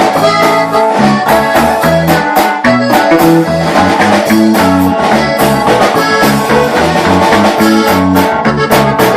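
Norteño band playing an instrumental break between the verses of a corrido. A lead melody runs over a stepping bass line and a steady drum beat.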